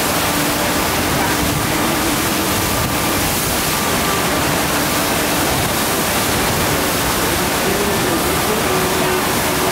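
A FlowRider sheet-wave machine's pumped water rushing steadily up the ride surface and breaking into spray at the crest, a loud, even noise.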